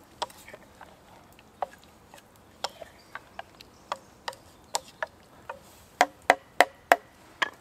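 Wooden spoon stirring in a steel cooking pot, knocking against its sides in light, irregular clicks. Near the end come five sharper knocks in quick succession, about three a second, as the spoon is tapped against the pot's rim.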